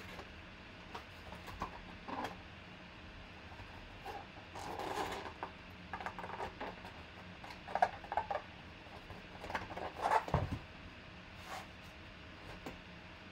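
A cardboard Spalding basketball box being handled and its flaps folded and tucked shut: intermittent rustling, scraping and small clicks of the cardboard, with a dull thump a little after ten seconds in.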